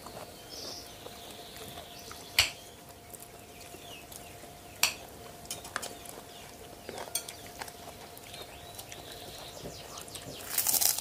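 Spoons and plates clinking sporadically as people eat, with two sharp clinks about two and a half seconds apart standing out as the loudest, and a short rustling burst near the end.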